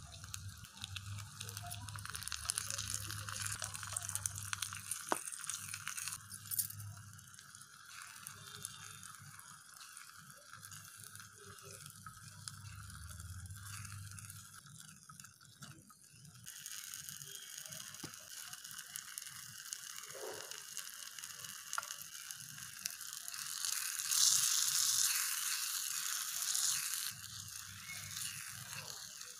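Chopped tomato and onion sizzling in oil in a miniature clay pot while being stirred with a tiny wooden spoon; the sizzle grows louder for a few seconds near the end.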